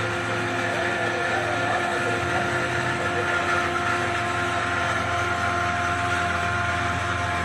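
CNC milling machine running steadily, its spindle giving a constant whine of several steady tones over a continuous machining noise.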